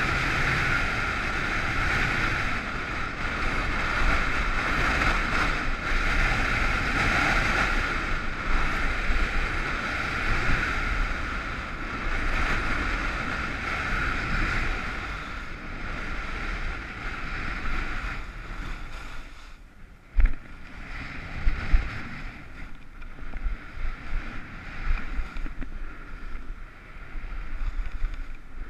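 Skis sliding and scraping over groomed snow, mixed with wind rushing over the camera microphone at speed. About two-thirds of the way through the rush drops away as the skier slows, and a couple of low thumps follow.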